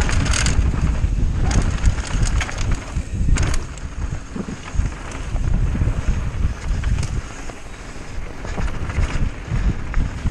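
Mountain bike riding fast down a dirt trail: wind buffeting the microphone over the rumble of the tyres, with frequent short clicks and rattles from the bike over rough ground.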